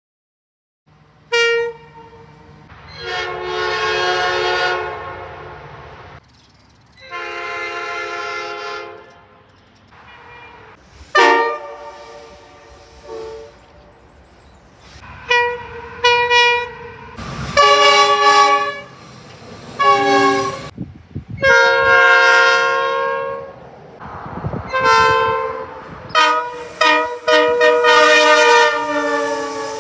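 Train horns sounding a long series of blasts, some short stabs and some held for about two seconds, over a low rumble.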